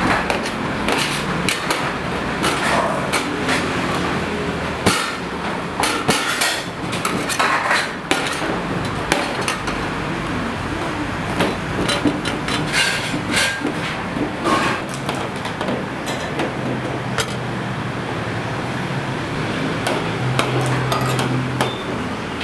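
Irregular knocks and clatter of cookware and utensils in a street-food kitchen, over a steady background hum.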